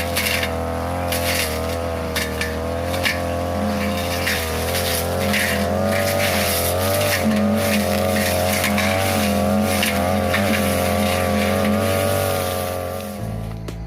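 42cc brush cutter running at high speed, its engine note wavering slightly, with quick ticks and snaps as the blade cuts through tall grass and woody brush. Near the end the engine sound gives way to guitar music.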